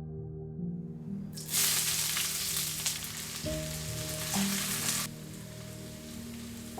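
Ingredients hitting hot oil in a kadhai and frying with a loud sizzle that starts sharply about a second and a half in and stops suddenly about five seconds in, over soft background music.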